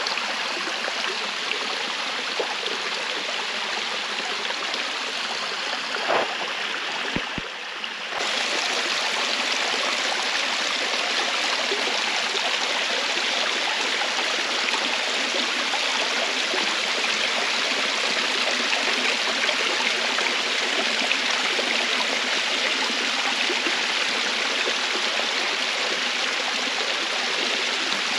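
Running water from a stream or waterfall, rushing steadily. About a quarter of the way through there are a couple of clicks and a brief dip, after which the rush comes back a little louder and brighter.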